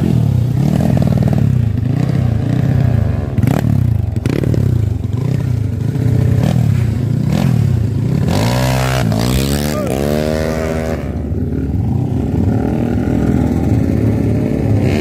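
Motorcycle engine revved in short blips about once a second, then given a longer rev that rises and falls in pitch about two thirds of the way in, before settling to a steadier run.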